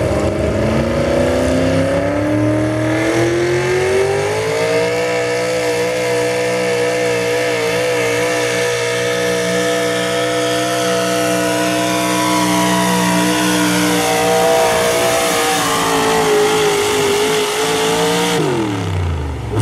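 Tractor-pull vehicle's engine at full throttle during a pull. It revs up over the first few seconds, holds high and steady under load down the track, then drops off sharply near the end as the throttle is cut.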